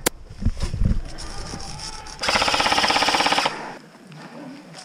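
Airsoft gun firing a rapid full-auto burst lasting a little over a second, starting about two seconds in, after a sharp single click at the very start.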